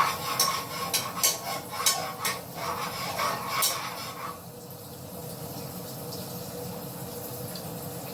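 Whisk clinking against a bowl as sauce is whisked, quick irregular clinks about three a second that stop a little after four seconds in. A steady faint hiss remains after the clinking.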